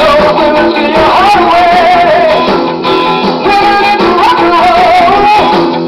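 A song with strummed guitar and a sung melody, played back from a pre-recorded 3¾ ips reel-to-reel tape on a restored Wollensak T-1980 tape deck.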